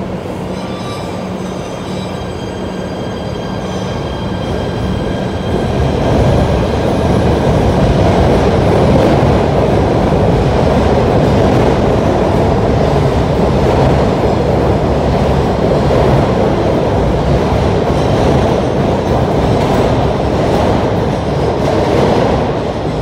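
A Kawasaki-built PATH PA5 subway train departing the platform, with several high steady whining tones as it gets under way. From about six seconds in, the running noise of its wheels on the rails grows louder as the cars pass close by, then drops off near the end as the last car clears the platform.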